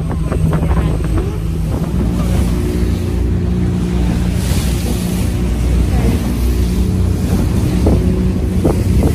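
A small open boat's outboard motor running steadily at speed, with wind buffeting the microphone and the sea rushing past the hull; the wind noise swells about halfway through.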